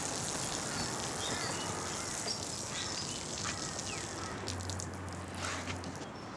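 Outdoor ambience: birds chirping in short calls over a steady high insect drone and hiss. The high drone drops away about two-thirds of the way through.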